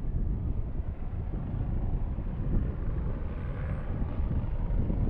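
Wind buffeting the microphone with a steady low rumble, over the distant hum of a Boeing 737-800's CFM56 jet engines as the airliner turns on the runway after landing.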